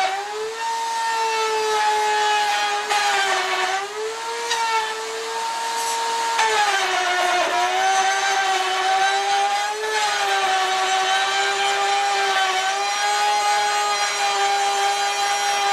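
Table-mounted router running with a loud, steady high whine while a 3/4-inch straight bit cuts a ledge along a wooden board. Its pitch sags briefly a few times as the bit takes load in the wood.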